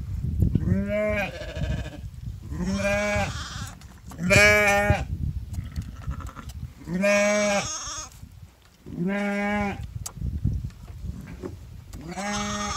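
Sheep bleating six times, each a steady, level call about a second long, over a low rumbling noise.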